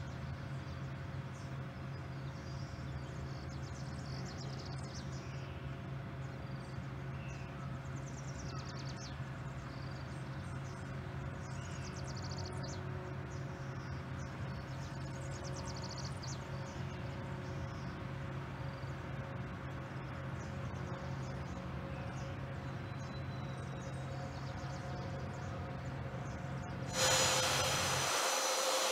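Air Force One, a Boeing 747 (VC-25A), taxiing: its jet engines a steady low rumble with a faint whine, with faint high chirps over it. Near the end the engine noise jumps suddenly to a loud, high whine as the aircraft passes close.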